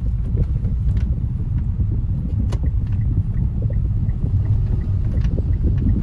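Steady low rumble of a moving car, heard from inside the cabin, with faint light ticks over it.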